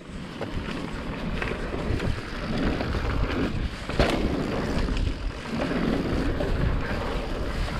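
Mountain bike descending a dirt trail at speed: wind buffeting the microphone over the rumble of tyres and the rattle of the bike, with one sharp knock about four seconds in.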